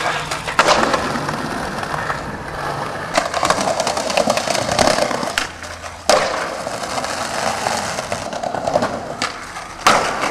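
Skateboard wheels rolling over rough concrete and paving slabs, with a few sharp clacks of the board and trucks hitting the ground.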